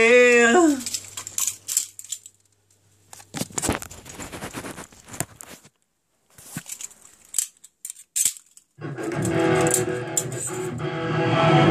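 A held pitched note cuts off with a downward slide in the first second. Then comes a stretch of scattered clicks and rustles from handling. About nine seconds in, loud electric guitar strumming starts up and keeps going.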